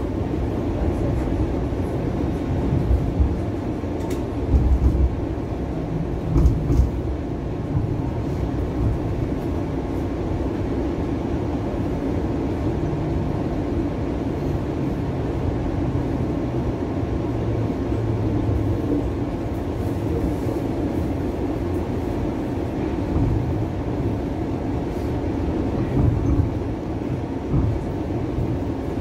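Cabin noise aboard a TTC Bombardier Flexity Outlook low-floor streetcar on the move: a steady low rumble, with a few short, heavier low thumps.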